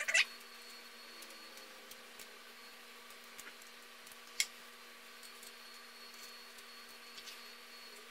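Faint steady electrical hum of room tone, with a few light ticks and clicks; a sharper click comes about four and a half seconds in.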